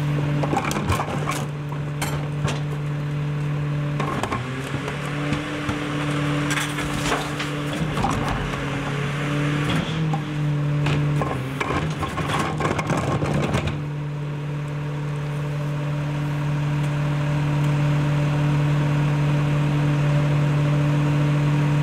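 Rear-loading garbage truck's diesel engine running steadily while a wheeled trash cart is tipped into the hopper, with clattering and knocks of the plastic cart and trash falling in over the first dozen seconds or so. After that only the engine runs on, gradually getting a little louder.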